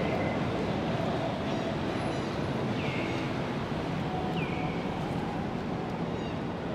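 Steady outdoor background noise with a short, high call that falls in pitch, heard three times about a second and a half apart, along with a few faint high chirps.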